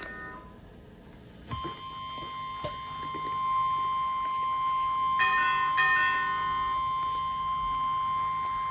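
NOAA Weather Radio warning alarm tone: a single steady high beep near 1 kHz that starts about a second and a half in and holds without a break, sounded ahead of a severe thunderstorm warning. Short chime-like tones sound over it at the very start and again about five seconds in.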